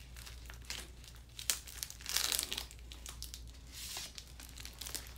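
Crinkling and rustling of a sterile paper-and-plastic wrapper as an endotracheal stylet is drawn out of it, in irregular bursts, the loudest about two seconds in and again near four seconds.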